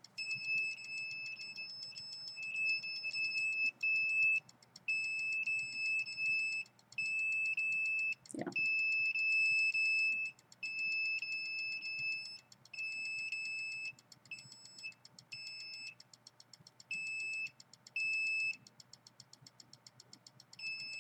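A meter's electronic alarm beeping, a steady high tone sounding in on-off stretches of uneven length. It is set off by the rising reading on the meter.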